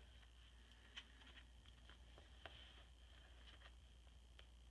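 Near silence: faint room tone with a few soft ticks, the clearest about a second in, from a hand touching the plastic page protectors of a ring-bound scrapbook album.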